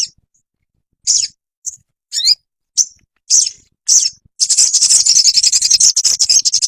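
A sogon songbird calling: a string of short, high chirps about every half second, then from about four and a half seconds in a continuous rapid, high-pitched trilling chatter.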